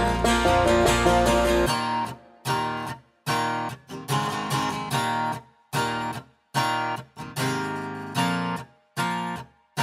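Background music: a full band drops out about two seconds in, leaving strummed guitar chords with short silent breaks between them.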